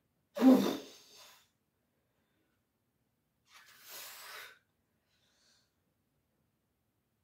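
Heavy breathing of a man straining through a set of dumbbell chest flies. A loud, grunting exhale comes about half a second in, and a second, airier breath follows around four seconds.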